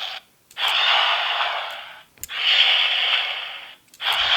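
Bandai DX Nichirin Sword toy's speaker playing its sword-swing slash sound effects in motion-sensing mode: three hissing whooshes in a row, each about a second and a half long, with short silent gaps between them.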